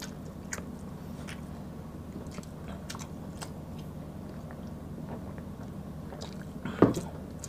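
Close-miked eating and drinking mouth sounds: soft wet clicks and smacks of chewing and swallowing, over a steady low hum, with one louder short sound near the end.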